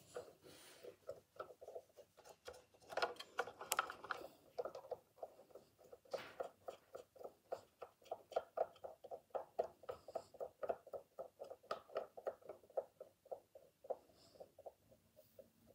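Cotton swab rubbing back and forth on a diecast model car's small plastic wheel and tyre, in quick even strokes at about five a second.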